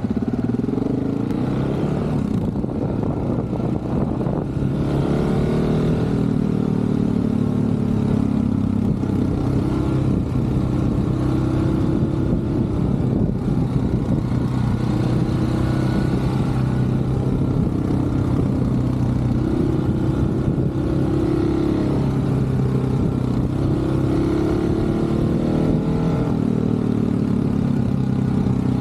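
Motorcycle engine heard from the bike as it is ridden round a track, the revs climbing and dropping again and again with throttle and gear changes through the corners.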